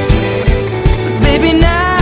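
Background pop song with a steady drum beat; a singer's voice comes in about halfway through.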